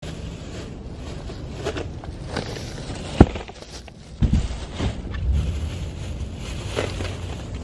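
Plastic grocery bags rustling and groceries being set down in a car's trunk, with a sharp knock about three seconds in and a dull thud about a second later.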